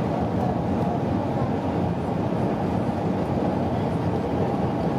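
Steady airliner cabin noise: jet engines and airflow heard from inside the passenger cabin as a constant low rumble with no distinct events.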